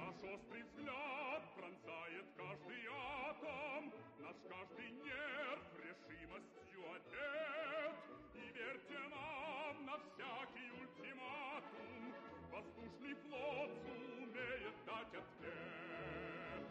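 Operatic singing with a wide vibrato over orchestral accompaniment, playing as closing music.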